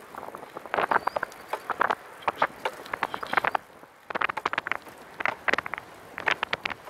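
Clusters of rapid clicking and rattling from a Catrike 700 recumbent trike being ridden on a paved path, coming in bursts every half second to a second with a brief lull a little past halfway.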